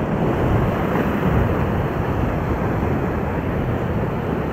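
Rushing whitewater of a river rapid churning around an inflatable raft, a steady loud wash of water noise, with wind rumbling on the microphone.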